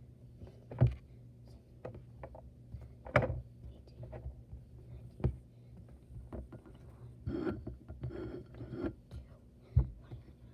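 Handling noise of squishy toys being moved close to the microphone: a run of scattered soft knocks and thumps, with a few louder thumps about a second in, about three seconds in, about five seconds in and near the end.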